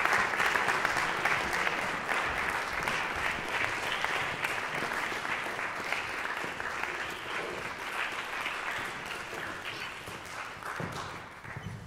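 Audience applauding in a concert hall, the clapping thinning out and dying away near the end.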